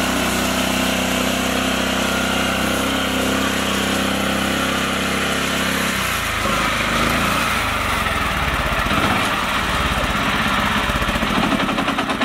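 Small engine of a homemade mini tractor running steadily as it drives. About halfway through the sound turns to a closer, rough, rapid pulsing of the engine's firing strokes.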